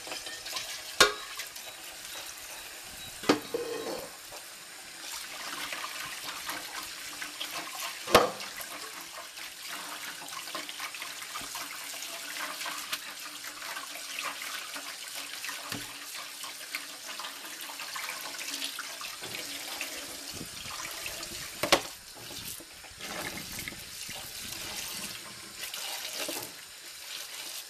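Kitchen tap running cold water onto cooked spaghetti in a plastic colander in a stainless-steel sink, rinsing it to stop the cooking, with hands tossing the wet pasta. A few sharp knocks stand out over the steady running water, the loudest about eight seconds in.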